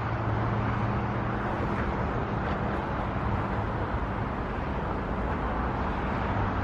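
Steady road traffic noise from the busy coastal highway below, an even continuous rush with a low hum.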